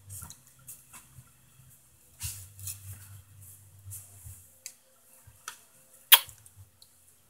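Faint clicks and rustles with a low hum that comes and goes, and one sharp click about six seconds in.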